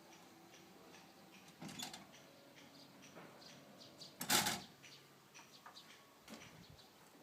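A series of light clicks and knocks over a faint steady hum, with one louder clatter about four seconds in.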